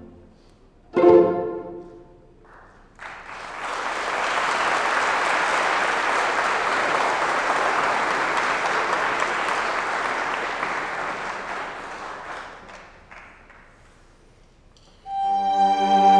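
A string orchestra's loud final plucked chord rings and dies away about a second in, followed by about ten seconds of audience applause that fades out. Near the end the strings begin again with slow, sustained bowed chords.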